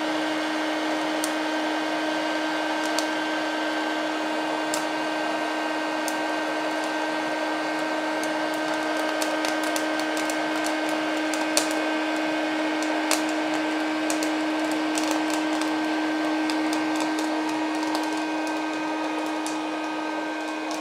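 Electric hot-air popcorn maker running with a steady blower hum while corn kernels pop inside it. The pops start as a few scattered cracks and grow frequent about halfway through as the batch reaches full popping.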